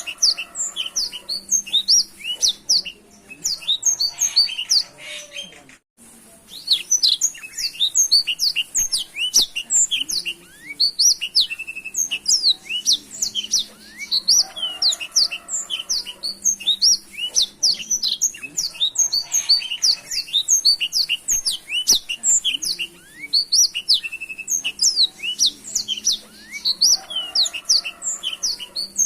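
Black-throated canary (blackthroat) singing a fast, unbroken run of high chirps and quick whistled sweeps, with a brief break about six seconds in.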